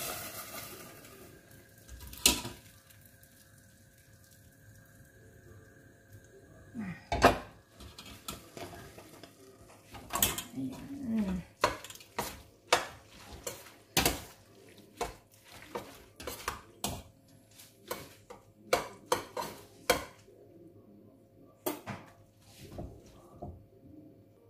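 Metal spoons clinking and scraping against a stainless steel pot while stirring drained pasta: a string of sharp knocks, a couple of loud ones early, then quicker clinks in the second half.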